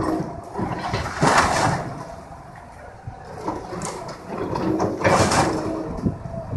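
Excavator demolishing a cinder-block house: the diesel engine runs with a low rumble, broken twice, about a second in and around five seconds in, by loud crunching and clattering of breaking block and falling debris.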